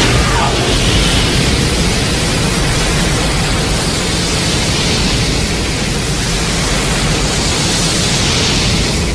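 Loud, steady rushing noise, an even hiss with a low rumble beneath it, holding level throughout.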